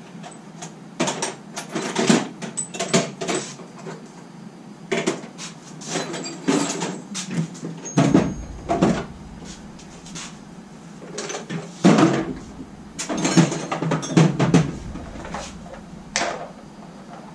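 Rummaging through tool cases for a Torx bit set: an irregular series of knocks, clicks and metal clatter as cases and lids are opened and tools are handled.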